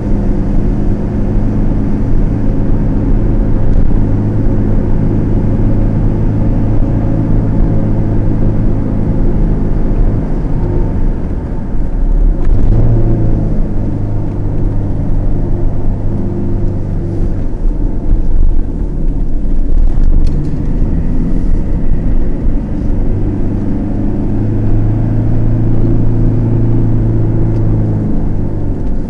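Car driving on a road, heard from inside the cabin: a steady engine hum with tyre and road noise, the engine note changing pitch a few times as the car's speed changes.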